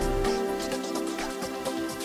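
Electronic background music: held synth chords over a steady beat.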